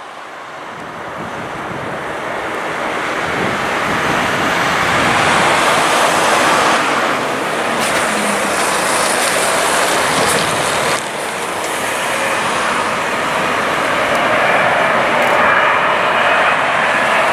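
Boeing 777-200ER's twin GE90 turbofan engines at approach power, a steady jet roar growing louder over the first several seconds as the landing airliner comes nearer, then holding loud.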